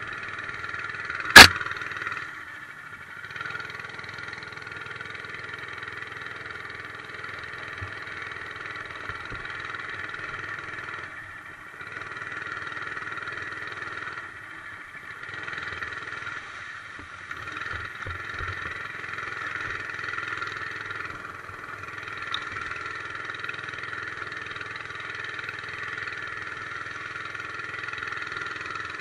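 Monster Moto 80cc mini bike's small single-cylinder four-stroke engine running while ridden, the throttle easing off and opening again a few times. A single sharp knock about a second and a half in is the loudest sound.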